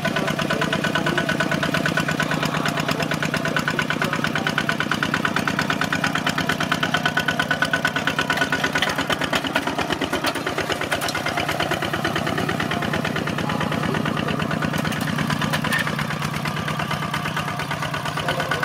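Two-wheel walking tractor's single-cylinder diesel engine running steadily with a rapid, even chugging while it pulls a disc plough through the soil.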